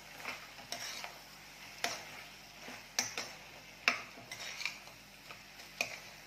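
A spatula stirring and sautéing pieces of mutton in a thick spice masala in a steel pressure cooker, with irregular scrapes and knocks against the pot wall every half second to a second.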